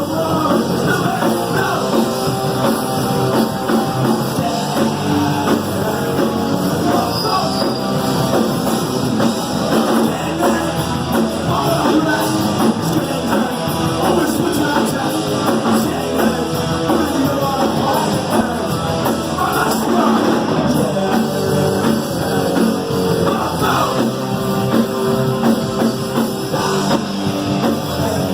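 Punk rock song: distorted electric guitars and drum kit with singing, loud and driving without a break.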